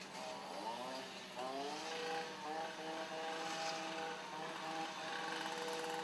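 A machine motor spinning up twice, its pitch rising each time, then running steadily at a constant pitch.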